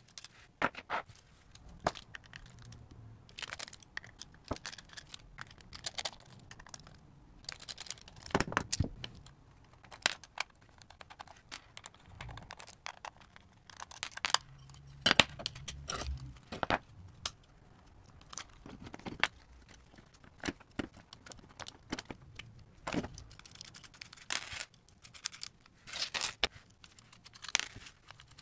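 Irregular clicks and clinks of small metal parts as a guitar pedal is taken apart by hand: screws and jack nuts come off the metal enclosure and are set down on the bench, and a screwdriver and a plastic nut tool are handled.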